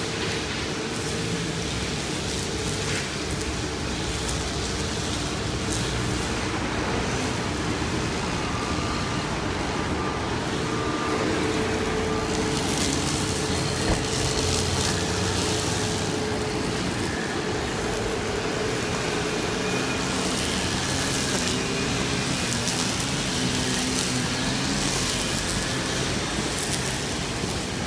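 Steady road traffic noise from a busy city street, with a tram going by near the end.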